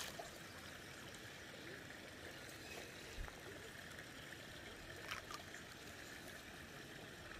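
Faint, steady trickle of pond water, with a couple of small splashes from fish rising at the surface, the clearest about five seconds in.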